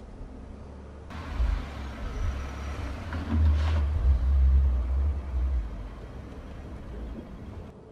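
A Ford F-150 pickup driving past on a dirt track: a low engine rumble that swells to its loudest around four to five seconds in, then fades.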